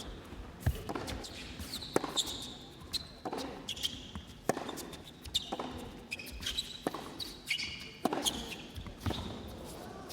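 Tennis ball struck back and forth by rackets in a rally, about one hit a second, with short high squeaks between the hits.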